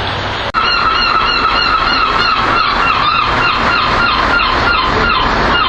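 A gull calling repeatedly: one long call, then a run of short calls falling in pitch, over steady background noise. A sharp click about half a second in.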